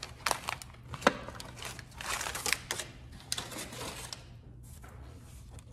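Handling noise as a small hard airbrush case is opened over crumpled kraft wrapping paper: irregular clicks and knocks from the case with paper crinkling, a sharp click about a second in, dying down after about four seconds.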